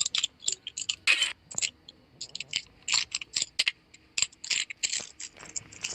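A quick, irregular run of sharp clicks, several a second, with a longer scratchy burst about a second in.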